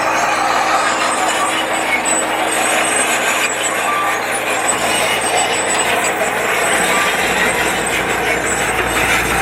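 Heavy construction machinery running: a loud, steady, dense mechanical noise with no clear rhythm or pitch changes.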